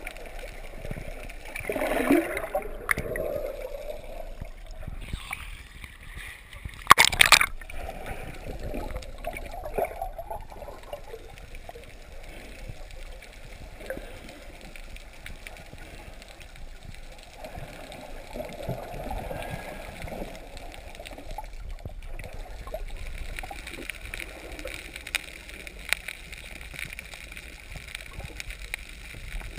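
Muffled water noise and bubbles heard through an underwater camera, with a short loud burst about seven seconds in.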